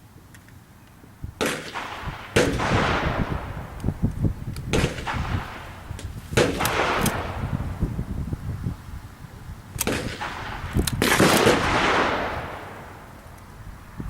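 Several shotgun shots, each a sharp report with a long echo trailing off.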